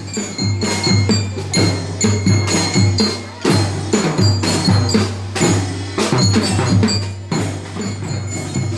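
School marching band playing: drums struck in a steady beat, with ringing bell tones over them.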